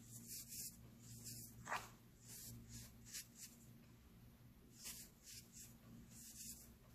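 Hands crushing and raking through soft, sand-like baking soda: short, irregular bursts of soft crunching and gritty rustling, with one sharper crunch just under two seconds in.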